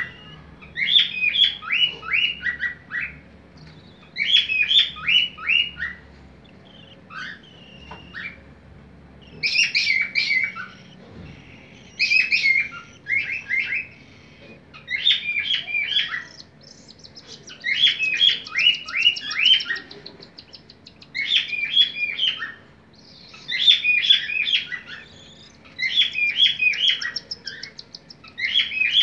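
Cockatiel chicks begging as a parent feeds them: bursts of rapid, high chirps, each lasting a second or two and repeating every two to three seconds.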